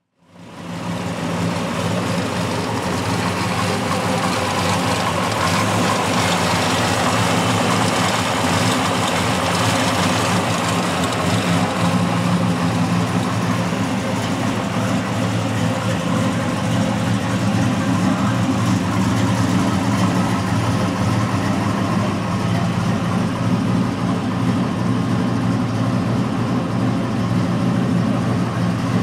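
1957 Chevrolet pickup's engine idling steadily, coming up within the first second and then holding an even, unchanging drone.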